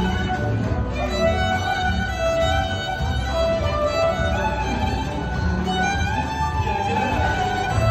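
Violin bowed, playing a melody of long held notes.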